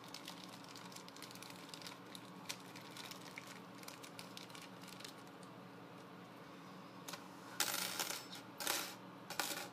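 Thin steel tension wrenches clinking and rattling together as a pack of them is opened and tipped out. Light handling clicks come first, then three louder bursts of jingling near the end.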